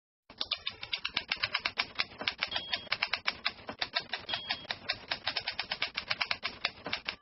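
Typewriter keys striking in a fast, even run of about ten clicks a second as a line of text is typed out.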